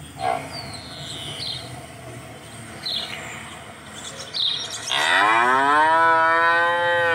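A cow mooing once: one long call, about two seconds, that rises in pitch and then holds, starting about five seconds in.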